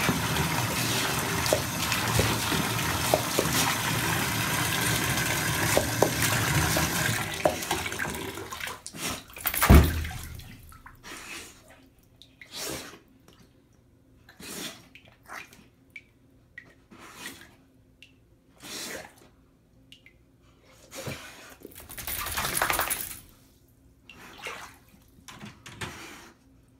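Water running from a bathtub spout into a filled tub for about eight seconds, then dying away. There is a single loud thump near ten seconds in. After it comes a string of short splashes and slurps as a Bull Terrier bites and paws at the still bathwater.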